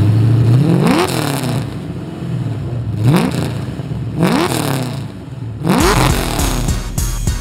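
Built, supercharged LS V8 in a Nissan 240sx drag car idling and revved four times, each rev climbing sharply and dropping back to idle. Music comes in near the end.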